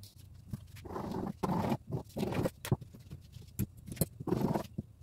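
Dressmaking scissors cutting folded net fabric along a paper pattern on a table: a series of short crunching, scraping strokes with a few sharp clicks between them.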